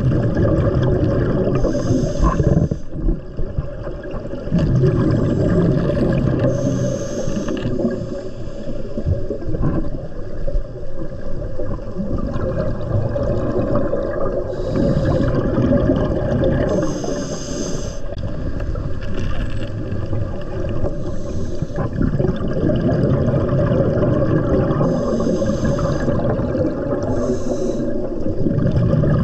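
Underwater sound of scuba divers breathing through regulators: a breath comes every few seconds, each with a short hiss and a rush of exhaled bubbles, over a steady underwater background.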